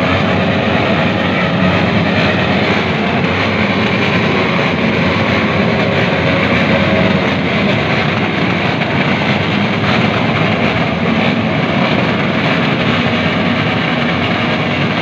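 Many small motorcycle engines running together in a large crowd of bikes, a loud, steady din with no single engine standing out.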